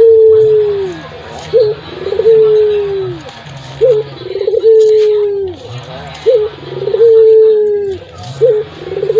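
Puter dove (Barbary dove) cooing over and over with a deep, full voice: each phrase is a short rising note, a quick rolling note, then a long drawn-out coo that falls in pitch at the end, about four phrases in all.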